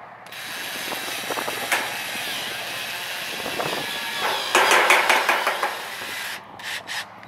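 Cordless drill driving a roofing screw through the steel ridge cap into the metal roof panel. It runs steadily for about six seconds, gets louder for about a second near the end as the screw bites and seats, then stops, followed by a few sharp clicks.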